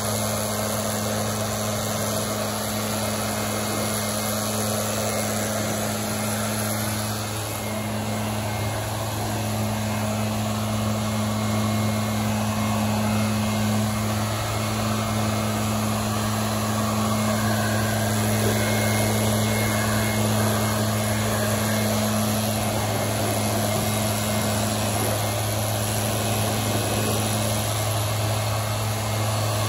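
Backpack leaf blower's two-stroke engine running steadily at high speed, with the rush of its air blast.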